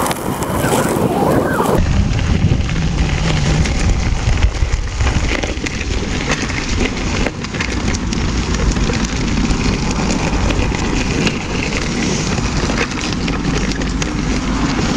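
Wind buffeting the microphone of a camera on a moving electric unicycle, over the crunch of its tyre rolling on a gravel path, with many small knocks and rattles.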